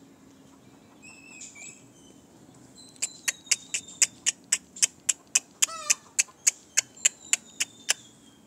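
A fast, even run of sharp clicks, about four a second, starts about three seconds in with a thin high tone alongside. A short call from a backyard chicken, falling in pitch, comes about halfway through.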